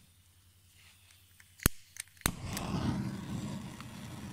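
Oxyturbo Turboset 110 bench gas torch being lit: a few sharp clicks, then a little over two seconds in the flame catches with a pop and burns with a steady hiss.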